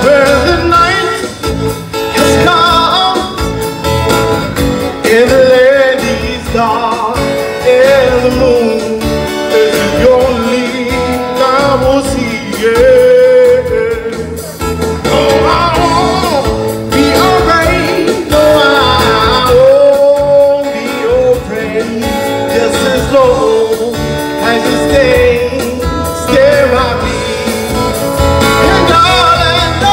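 A man singing a song into a microphone, with acoustic guitar accompaniment strummed along; the voice carries the melody in phrases with wavering held notes.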